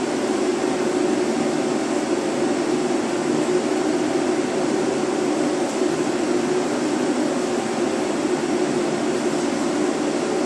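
Ventilation fan running with a steady, constant drone.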